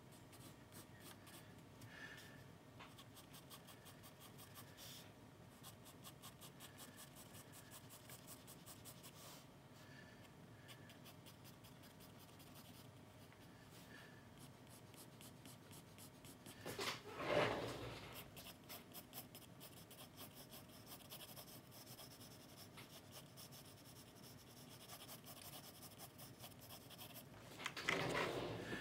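Graphite pencil drawing on sketchbook paper: faint short strokes, with two louder, longer scratchy strokes about two-thirds of the way through and near the end.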